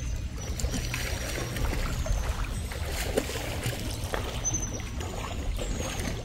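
Shallow river water trickling and lapping at the stony edge and around wading legs, over a low steady rumble.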